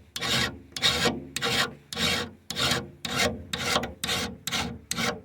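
Nicholson file rasping across the steel teeth of a sawmill saw blade in quick, even hand strokes, several a second, sharpening the teeth.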